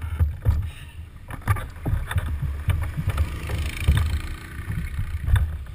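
An action camera being handled and picked up: irregular knocks and rubbing on the housing over an uneven low rumble.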